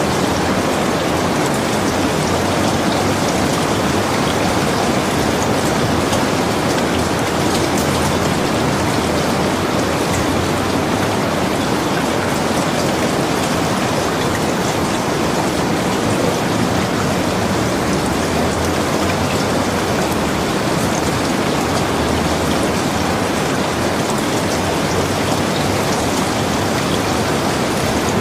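Steady rain: an even hiss with faint scattered drop ticks, unchanging throughout.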